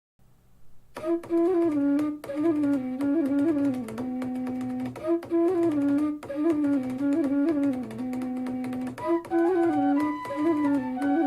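Instrumental music, a melody over a steady low hum and light ticking percussion, played back through a portable Bluetooth speaker as a sound test; it fades in over the first second.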